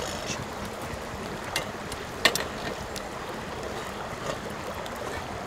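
Wood campfire crackling with a steady hiss and a few sharp pops, the loudest a little over two seconds in.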